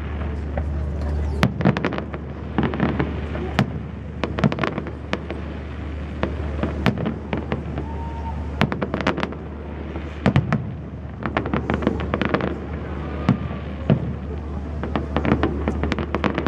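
Aerial fireworks display: shells bursting in repeated bangs, with rapid strings of sharp cracks coming in clusters every second or two.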